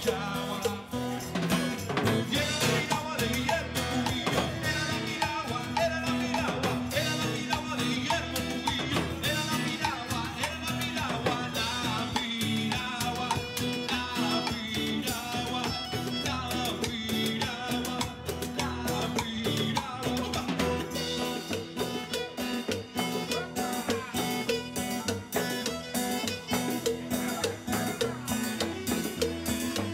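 A live band playing an upbeat Latin number: acoustic guitar, viola and a drum kit with cymbals keeping a steady, quick beat, with a man singing over it.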